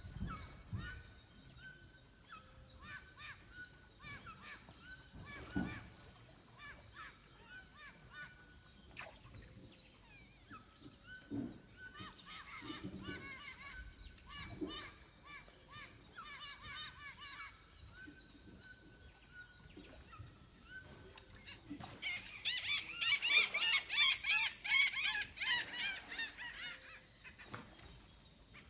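Amazon floodplain forest dawn chorus: many birds calling over one another over a steady high-pitched hum. Near the end a loud, dense outburst of calls stands out for several seconds.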